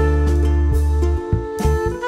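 Instrumental background music: sustained melody notes over a steady bass line.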